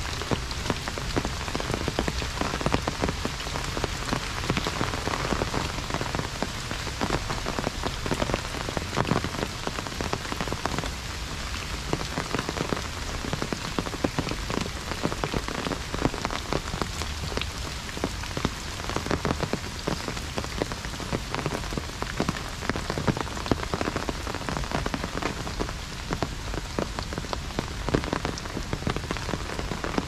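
Heavy rain falling on an umbrella overhead: a dense, steady patter of countless individual drops.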